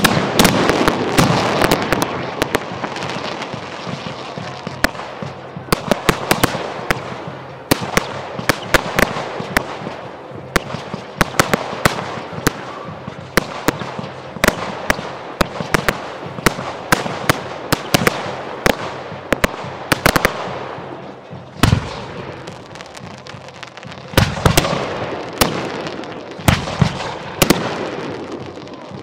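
Professional fireworks display: a dense, continuous run of sharp cracks and crackling over a steady hiss of bursting shells. Several heavier, deeper booms come near the end.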